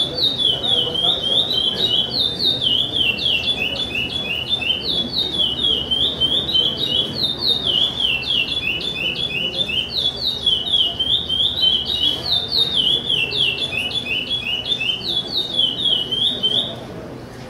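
Caged chopi blackbird (pássaro-preto) singing its charrua song: a long string of quick, clear, downward-slurred whistled notes in repeated phrases, stopping near the end.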